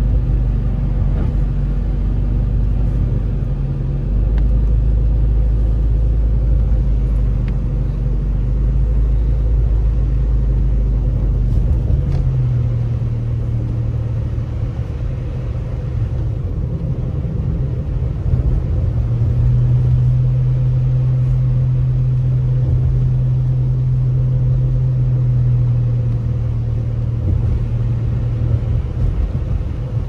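A car driving, heard from inside the cabin: a steady low engine and road rumble, its pitch shifting about twelve seconds in and again a few seconds later.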